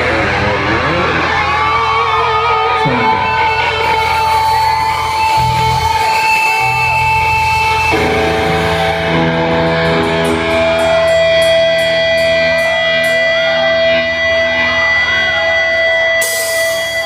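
Live rock band music led by electric guitar, with long held notes, some of them wavering. Near the end a wide hissing burst comes in, like a cymbal crash.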